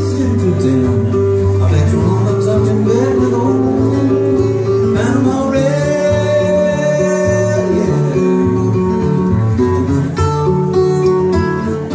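A man singing to his own acoustic guitar, strumming and picking a country-style song, with a long sung line in the middle.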